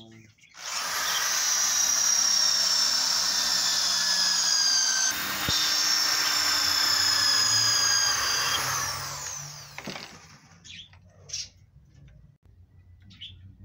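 Electric drill running at high speed into pallet-wood slats, with a brief break about five seconds in, then winding down near the nine-second mark. A few light knocks of wood follow.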